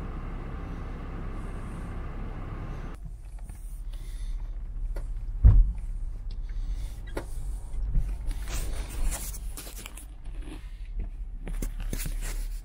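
Land Rover Discovery on a rough, overgrown track heard from inside: steady engine and tyre noise at first, then a loud knock about five and a half seconds in. Branches and thorny brush scrape and screech along the paintwork in two bouts near the end.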